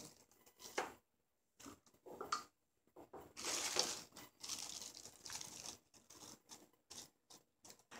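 Thin plastic accessory bags crinkling and rustling in the hands in irregular bursts, loudest in the middle.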